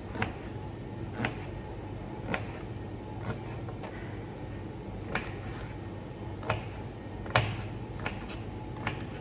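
Paring knife dicing peeled sweet potato on a chopping board: a series of short, sharp knocks as the blade goes through and strikes the board, about one a second at an uneven pace.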